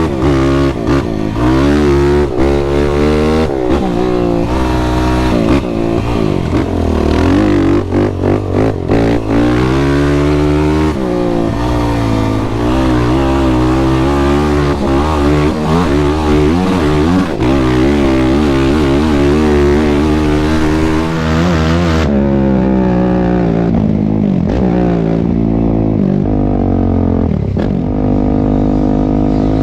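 Sport quad (ATV) engine revving up and down hard as it is ridden through sand dunes, with wind rumble on the microphone. About two-thirds of the way through, the hiss falls away and the engine settles to a steadier, lower note.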